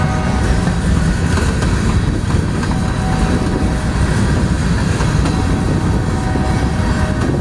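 Freight train cars rolling past on the rails: a steady, loud rumble and rattle of wheels over the track.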